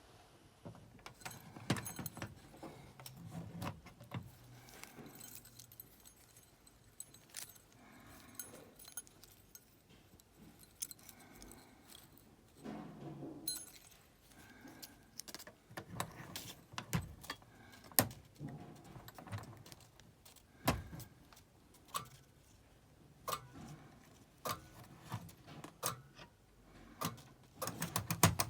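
Irregular clicks and clinks of small hard, metallic-sounding objects being handled, with a few duller knocks.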